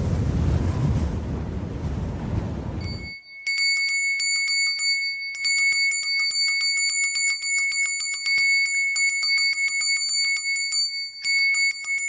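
A loud rushing, rumbling noise cuts off about three seconds in. Then a small metal bell inside a paper origami hand bell rings as it is shaken: a fast, bright jingle of rapid strikes, with a few short pauses.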